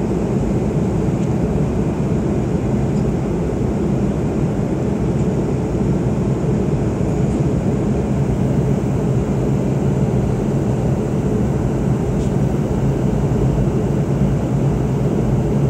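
Steady cabin noise of an airliner in flight: engine and airflow noise heard from inside the passenger cabin, a low, even rumble that does not change.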